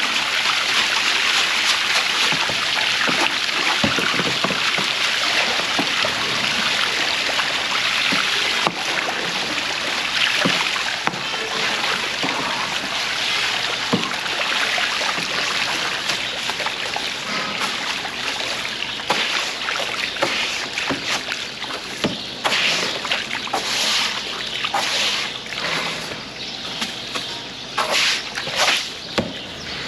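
Brush scrubbing inside a cattle water trough, water sloshing and splashing steadily. The strokes grow more separate in the second half.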